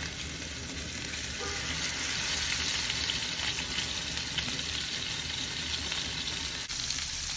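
Sous vide steaks searing in hot oil in a skillet: a steady sizzle as the already-cooked meat browns for its crust.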